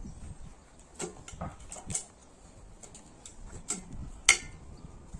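Scattered light metallic clicks and knocks as a metal mesh drum compost spreader is handled, the loudest about four seconds in.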